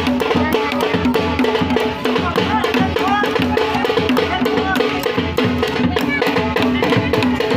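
Drums played fast and loud in a dense, driving rhythm, with a pitched drum beat repeating several times a second underneath the rapid strikes.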